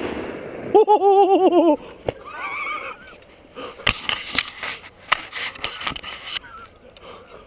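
A rapid run of loud goose honks about a second in, followed by fainter, higher honks. Several sharp clicks or knocks come in the second half.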